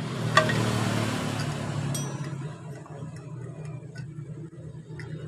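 A few light metallic clicks of hand tools on engine parts, over the steady low hum of a motor vehicle engine running nearby.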